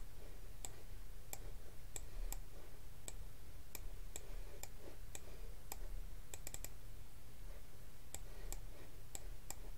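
Computer mouse clicking at irregular intervals, about two clicks a second, with a quick run of three about six and a half seconds in. A faint low hum runs underneath.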